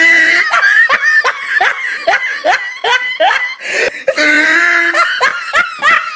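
A person laughing hard: a long run of short, repeated ha-ha pulses, each dropping in pitch, about two to three a second.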